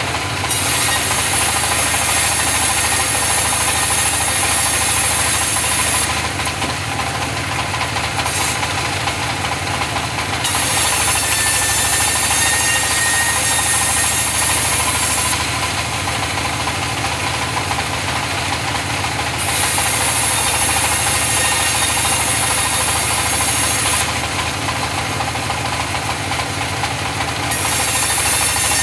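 Powered sawmill saw running steadily while cutting mahogany logs. A high whine and hiss from the blade in the wood comes in several stretches of about four to six seconds, with short lulls between them when the blade runs without cutting.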